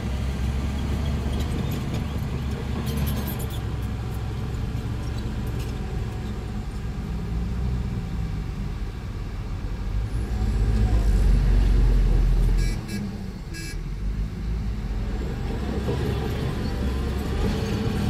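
Small Komatsu crawler bulldozers' diesel engines running under load as they push wet mud. The engine noise is steady, swells about ten seconds in and drops suddenly a couple of seconds later.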